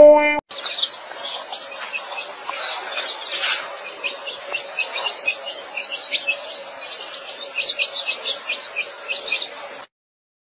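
Garden ambience: small birds chirping in short repeated calls over a steady high-pitched insect drone. A musical chime ends just at the start, and the sound cuts off suddenly about a second before the end.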